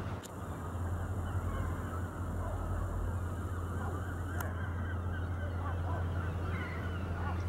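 Birds giving repeated honking calls over a steady low hum.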